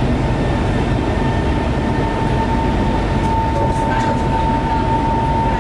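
Shanghai Metro Line 11 train pulling away from a station, heard from inside the car: a steady rumble of the running train, with a high steady whine from the electric traction motors coming in about two seconds in as it picks up speed.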